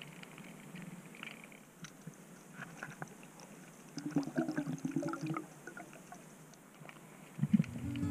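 Muffled underwater clicking and crackling as hands dig and sift through the silt and debris of a creek bed, with a busier stretch of scraping about halfway through. Background guitar music comes in near the end.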